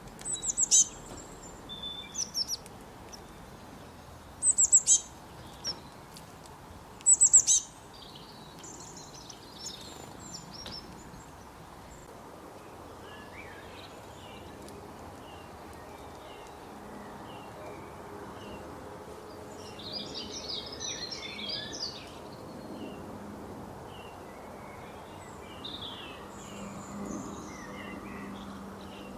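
Wild birds calling: a few loud, sharp, high chirps in the first eight seconds, then softer scattered chirping with a brief busier flurry about two-thirds of the way in, over a steady outdoor hiss.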